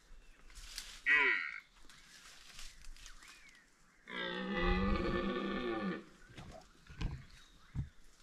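Red deer stag roaring in the rut: one long, low, drawn-out roar of about two seconds, starting about four seconds in. A shorter call with falling pitch comes about a second in.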